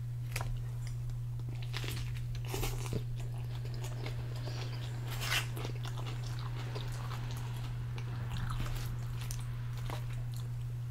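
Close-miked chewing and mouth sounds of someone eating donair wraps, with scattered crisp clicks and crackles as food is picked out of the wrappings, over a steady low hum.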